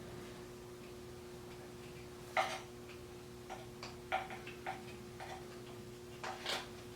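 Scattered clicks and taps of hand-work on an edger wheel, a split plastic spacer being forced onto the axle. There is one sharp click a little over two seconds in, then a run of lighter irregular ticks and two more clicks near the end, over a faint steady hum.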